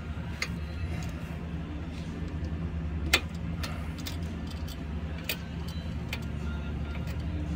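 Scattered metallic clicks from a socket and extension working the bottom nut of a sway bar link by hand, the loudest about three seconds in and another after five seconds, over a steady low hum.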